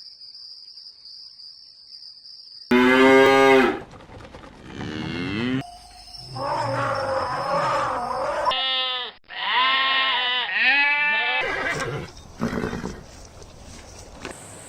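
A series of loud livestock calls, several in a row, each pitched and wavering, after a quiet start of nearly three seconds.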